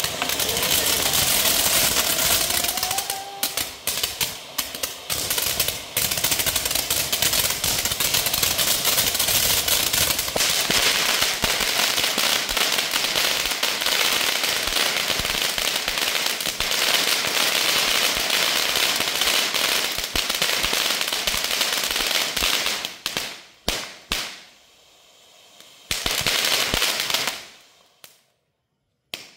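Triangle fountain firework crackling loudly, a dense, rapid popping like a string of tiny firecrackers as it throws out crackling sparks. After about twenty seconds it breaks into separate spurts and sputters out near the end.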